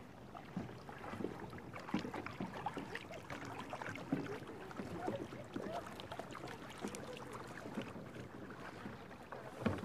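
Kayak paddles dipping and splashing in the water, with drips and small irregular knocks.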